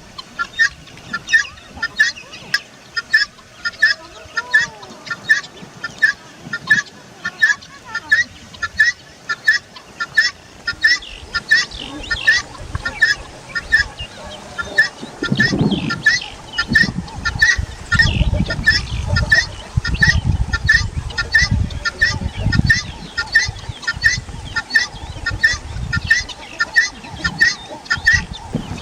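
A farm bird calling over and over in a steady rhythm, short calls about two a second. From about halfway through there is intermittent low rumbling underneath.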